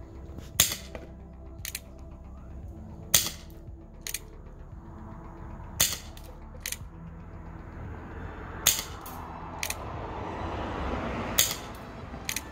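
Umarex Smoke Wagon chrome CO2 airsoft single-action revolver being fired: five sharp shots at a steady pace, about one every two and a half seconds. Each shot is followed about a second later by a fainter click.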